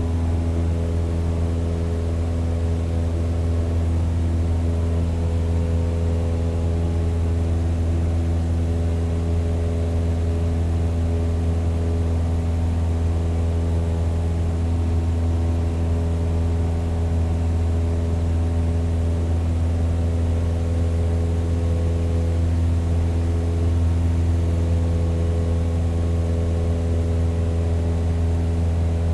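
Propeller plane's engine running at a steady pitch and power, a deep even drone with no rise or fall.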